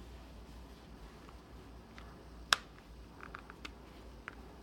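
Hard plastic clicks and taps from a Spigen Tough Armor phone case being handled: one sharp click about two and a half seconds in, a quick run of fainter clicks about a second later, and single ticks before and after.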